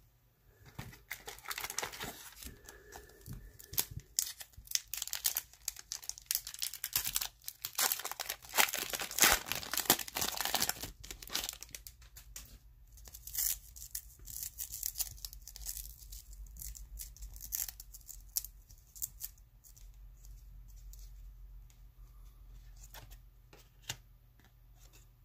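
A trading-card pack wrapper being torn open and crinkled: a dense run of ripping and crackling for about the first half, then sparser rustles and clicks of cards being handled, fading to quiet near the end.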